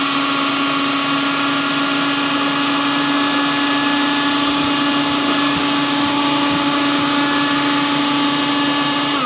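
Electric food processor motor running steadily at full speed, blending a milkshake of ice cream and milk. At the very end it is switched off and its hum starts to wind down, falling in pitch.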